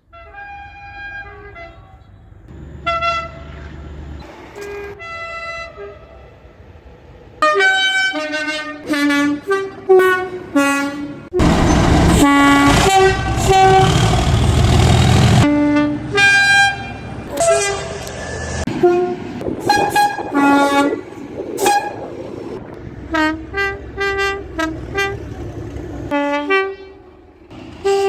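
Class 37 diesel locomotives sounding their two-tone air horns: a run of short high-low blasts, clip after clip. About halfway through, a loud stretch of noise lies under the horn for about four seconds.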